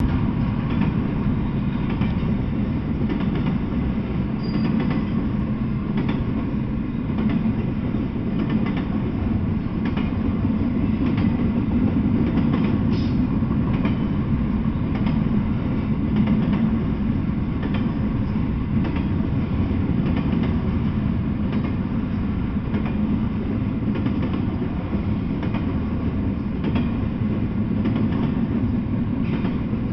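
Double-stack intermodal freight train rolling past: a steady low rumble of the well cars on the rails, with faint clicks recurring as the wheels pass over the track.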